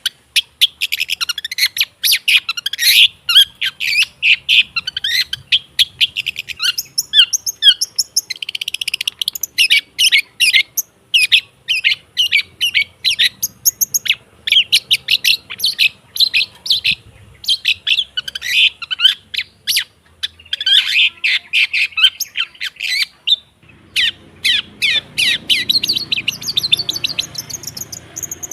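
Long-tailed shrike (cendet) singing a fast, continuous chattering song of high chirps and trills, with one brief pause about three-quarters of the way through.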